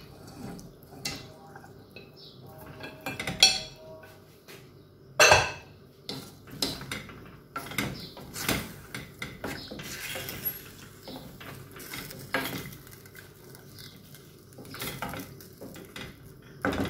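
Chicken pieces and potatoes tipped from a ceramic plate into a stainless steel pot of spice sauce, then stirred with a wooden spoon: irregular knocks and clinks of plate and spoon against the pot, the loudest about three and five seconds in.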